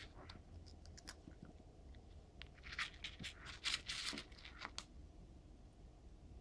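Cat eating dry kibble from a plastic food-maze feeder: a cluster of faint crunches and clicks over a couple of seconds midway.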